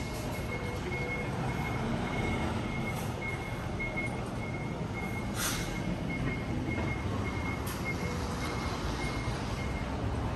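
Steady road traffic, with a dump truck and cars passing, under a run of short high electronic beeps at one pitch that stops near the end.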